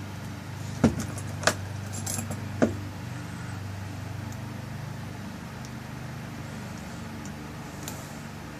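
Small metal clicks and taps of lock parts being handled as the tailpiece is screwed onto the back of a rekeyed lock cylinder: three sharp clicks in the first three seconds, then only a steady low hum.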